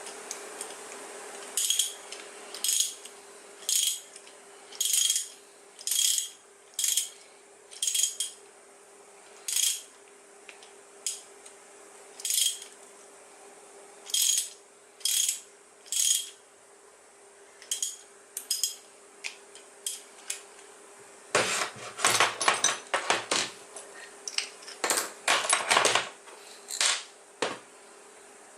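Metal parts and tools clinking against each other during work on the skateboard's hub motor: a string of single ringing clinks about one a second, then a quicker run of rattling metal clatter in the second half. A faint steady hum lies underneath.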